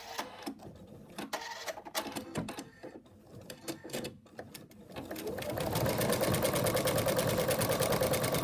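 Embroidery machine stitching out at speed, a fast, even stitch rhythm that starts about five seconds in and is the loudest sound. Before it come scattered clicks and knocks of handling at the machine.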